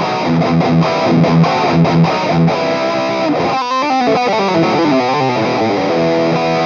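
Distorted electric guitar played through the Flatsons KE1 pedal's high-gain PV 5150 amp model: short rhythmic chords on a low note, a quick riff about three and a half seconds in, then a held chord near the end.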